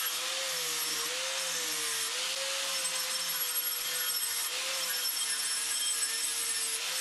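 Angle grinder running against a freshly sand-cast aluminum bowl to clean up the casting: a steady motor whine that wavers slightly in pitch over a continuous grinding hiss.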